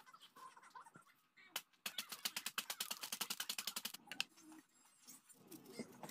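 Takis rolled tortilla chips being crushed by hand inside their foil-lined snack bag: rapid crackling crunches start about two seconds in and go on for about two seconds.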